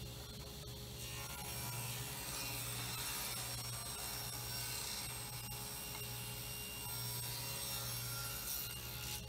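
Table saw running with a steady motor hum while a figured cherry board is ripped along the fence into a thin strip. The cutting noise starts about a second in and stops just before the end.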